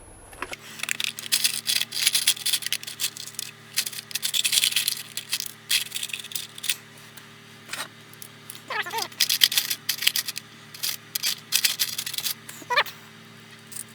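Metal bracket pieces and hand tools clinking and rattling as they are handled on a workbench, a run of quick clicks and clatters, with a couple of short falling squeaky scrapes past the middle and near the end.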